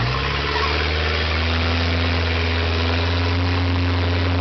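Speedboat engine running steadily under way, a low, even drone with a hiss of water and wind over it.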